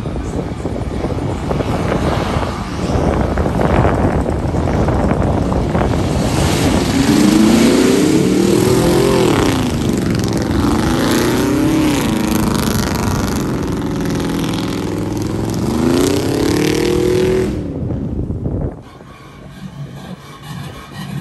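Pickup truck engine revving hard as its wheels spin in deep mud, the pitch climbing and falling again and again over churning tyre noise. It cuts off suddenly near the end, leaving quieter background noise.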